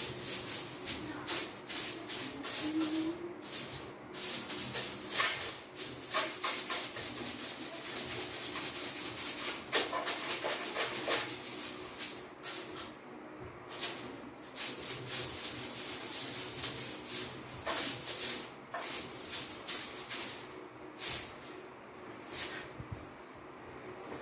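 A broom brushing and swishing against a window frame and sill in quick, scratchy strokes, with short pauses between bouts.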